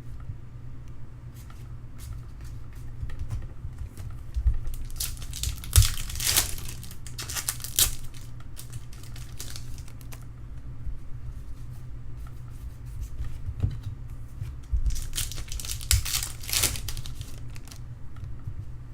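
Trading-card pack wrapper being torn open and crinkled, with small clicks of cards being handled; the longest stretches of crinkling come about five seconds in and again near the end.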